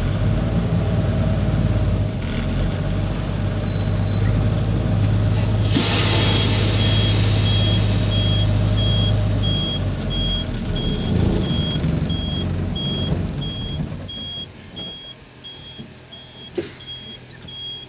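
Heavy truck's diesel engine running as the truck manoeuvres, with a loud burst of air hiss about six seconds in. A reversing alarm then beeps steadily about twice a second, and the engine goes quieter in the last few seconds.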